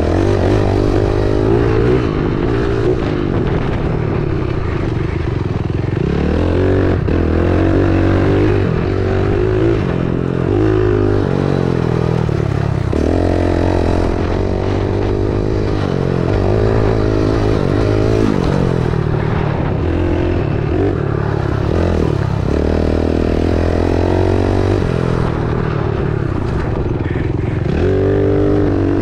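Dirt bike engine running under load, its pitch climbing and dropping again and again every couple of seconds as the throttle is opened and closed through the gears.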